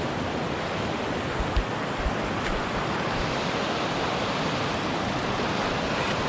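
Whitewater rapids rushing steadily over a rocky drop, with a few brief low knocks about one and a half to two seconds in.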